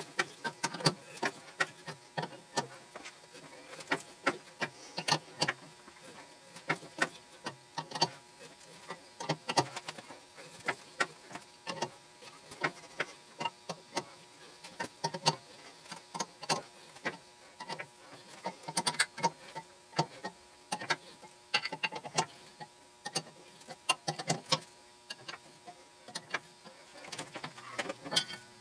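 Irregular metallic clicks and clinks of an adjustable wrench turning an Acme tap by hand through a cast-iron nut, the wrench shifted on the tap between short strokes as the last of the thread is cut. A faint steady hum lies underneath.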